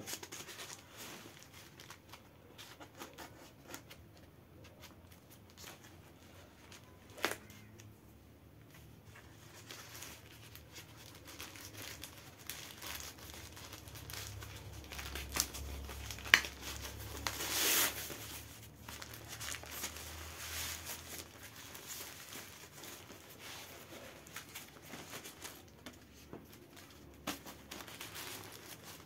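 Thin black plastic bag packaging crinkling and tearing as it is cut with scissors and pulled open by hand, in irregular rustles with scattered sharp clicks. There is a louder burst of rustling about two thirds of the way in.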